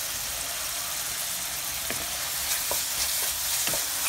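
Chopped small onions and tomatoes sizzling steadily in hot oil in a pan. From about two seconds in, a spoon stirs them, clicking and scraping against the pan several times.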